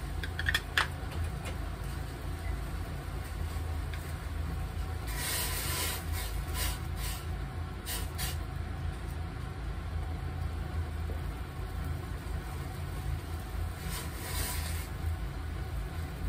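Cooking sounds at a gas stove: a steady low rumble, light clinks of a metal spoon against a small cup in the first second, and short bursts of hiss about five seconds in and again near the end.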